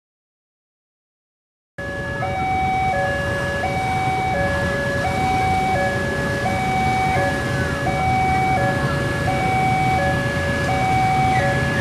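Electronic railroad crossing alarm sounding from a loudspeaker on the crossing sign: a two-tone warning that alternates between a higher and a lower note about every 0.6 s. It starts after nearly two seconds of silence, over a low engine rumble from waiting motorcycles.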